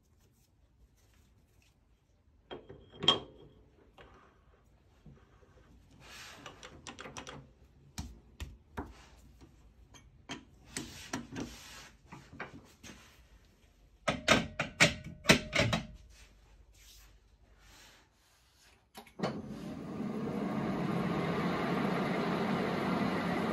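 Workshop handling of metal parts and tools: scattered knocks and clatter, a sharp ringing clink about 3 s in and a quick run of knocks a little past the middle. About 19 s in a machine tool's motor starts and runs steadily with a high thin whine.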